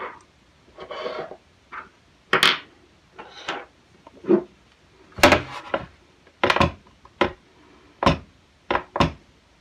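Cartridges and small metal gun parts clinking and knocking as they are picked up and set down on a hard surface: about a dozen irregular knocks, spaced unevenly.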